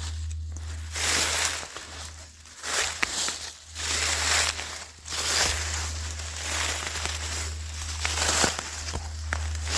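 Footsteps crunching through forest undergrowth, with brush and branches rustling and scraping at each stride, over a steady low hum.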